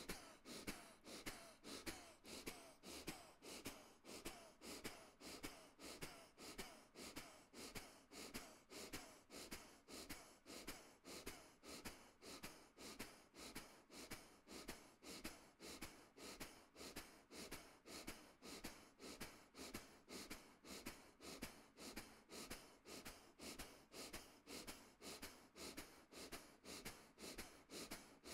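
Faint, rapid, forceful exhalations, about two a second in an even rhythm. Each breath is pushed out hard by sharply pulling the belly in, an abdominal pumping breath exercise for the deep transverse abdominal muscle.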